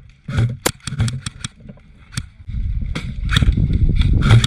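Airsoft guns firing: a handful of sharp, separate shots in the first second and a half and another just after two seconds. A loud low rumble builds over the last two seconds, with a few more shots near the end.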